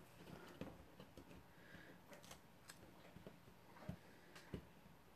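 Near silence, with a few faint taps and rustles of cardstock being handled and pressed down by hand on a craft mat, the clearest in the second half.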